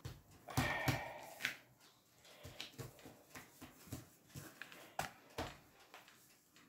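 Hands patting and pressing a ball of butter pastry dough against a plastic-covered table: a string of soft thumps and taps, with a brief squeak about half a second in.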